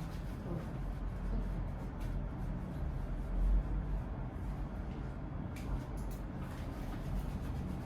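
Steady low room hum, with a few light clicks a little past the middle.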